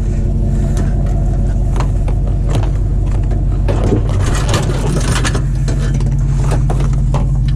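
Truck being driven, with its engine and road noise as a steady low hum and scattered short rattles and knocks throughout.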